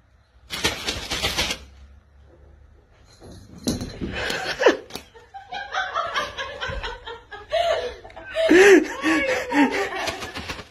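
A person laughing in repeated short bursts through the second half, after a brief noisy rustle about a second in.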